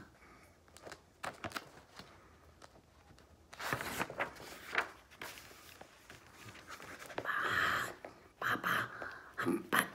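Irregular rustling and handling noises, with brief bits of whispered voice.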